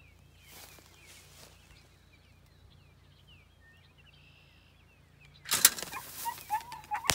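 Faint songbird chirping, then about five and a half seconds in a spring-loaded bird release snaps open with a sharp crack, followed by a loud flurry of wing flapping as the launched bird takes off.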